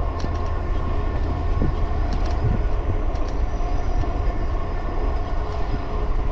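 Riding noise from an e-bike rolling along a paved path: a steady rumble of wind on the handlebar camera's microphone and tyre noise, with a faint steady whine above it.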